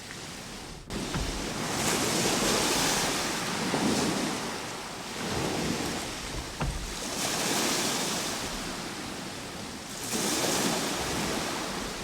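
Ocean surf washing in and drawing back, a rushing hiss that swells and eases in three slow surges.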